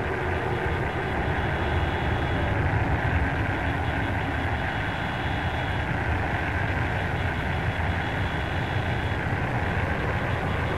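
Front-loading washing machine running: a steady, dense mechanical rumble as the drum turns, with a faint high whine that comes and goes.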